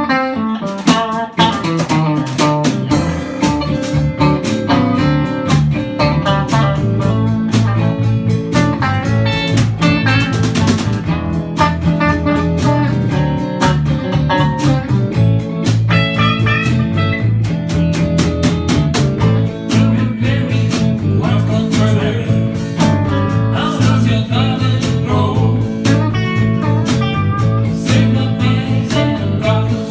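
Small live band playing: several electric guitars over a drum kit keeping a steady beat.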